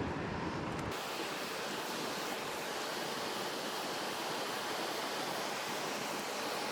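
Steady rushing of river current; about a second in, the low rumble drops away and a higher hiss is left.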